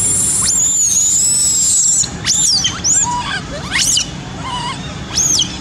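Baby monkey screaming. One long shrill scream is followed by several short shrieks that rise and fall in pitch.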